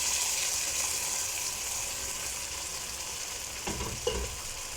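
Thickened meat sauce with butter sizzling in a pan, a steady high hiss that grows gradually quieter.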